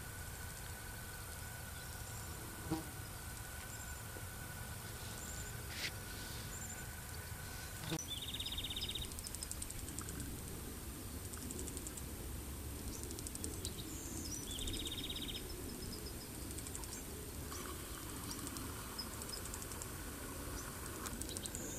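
Outdoor ambience: a steady low rumble, with a bird's short rapid trill heard twice, about eight and about fourteen seconds in, and faint high chirps.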